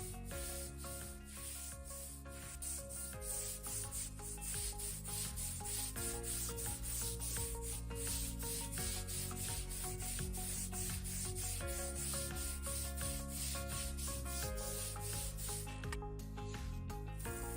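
Background music with a steady beat: held chords that change every second or two over a quick, even shaker-like percussion, about three hits a second.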